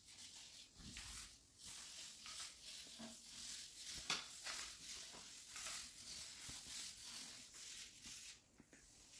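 Small foam paint roller rolling white paint onto a wooden mirror frame: faint, soft swishing strokes in a loose rhythm, with a light tap about four seconds in.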